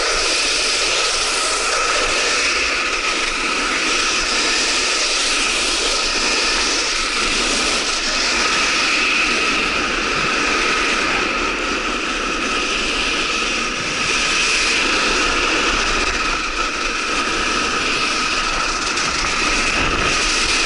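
Steady loud rush of wind on the microphone while snowkiting over slushy, icy spring snow, with a faint steady whine riding over the noise.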